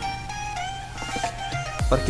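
Background music: a soft instrumental bed of held notes.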